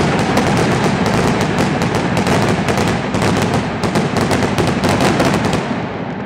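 Fireworks: ground fountains spraying sparks with a loud, continuous rushing hiss, packed with rapid crackles and pops as red stars shoot up, starting to die away near the end.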